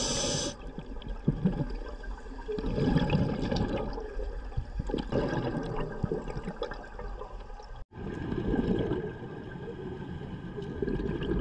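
A scuba diver's regulator breathing and exhaled bubbles rushing past an underwater camera, in surges every couple of seconds. A brief sudden break in the sound comes about two-thirds of the way through.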